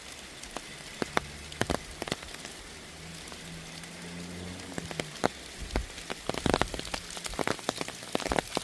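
Rain falling, with separate large drops tapping sharply close by; the drops come thicker and louder after about five seconds. A faint low hum sits underneath in the middle.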